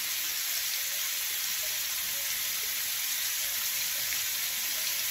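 Boneless chicken and vegetable skewers sizzling in an oiled grill pan: a steady, even high hiss.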